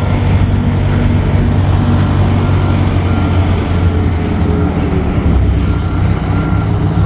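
A large vehicle engine running steadily, with a low, even hum.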